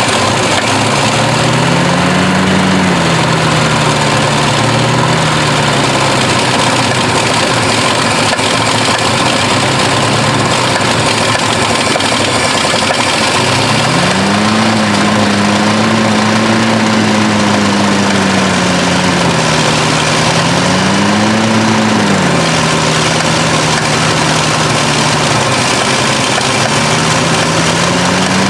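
Old Chevrolet truck engine running loudly through a massive exhaust leak, its speed rising and falling, climbing about halfway through, dipping, surging again and settling back.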